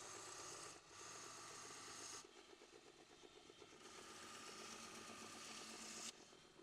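Belt grinder running with a red abrasive belt while a cleaver's old wooden handle is pressed against it to sand off grime. The motor hums steadily under two passes of sanding hiss. The first pass ends about two seconds in; the second starts about four seconds in and cuts off suddenly near six seconds.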